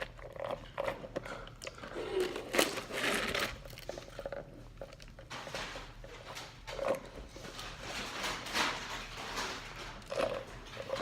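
Irregular rustling and crinkling with light knocks and clatters: food packaging and containers being handled and gathered up during cleanup.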